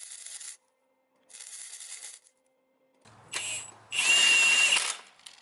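Two short hissing bursts, then a louder burst of about a second of a power tool running with a steady high whine, cutting off near the end.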